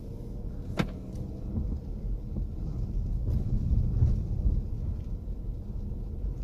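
Low, steady rumble of a car driving, heard from inside the cabin, with a single sharp click about a second in.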